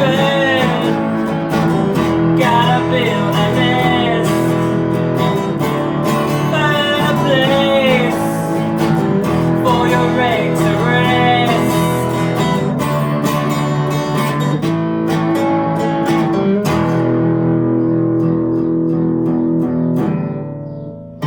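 Upbeat song played on acoustic guitar, with a melody that slides up and down in short phrases. The higher parts drop away about seventeen seconds in, and the music fades near the end.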